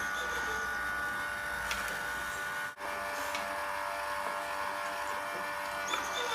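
Wooden kinetic sculpture's chain-and-sprocket drive and turning wooden wheels running with a steady whirring hum, with a couple of faint clicks. The sound drops out for a moment a little under halfway.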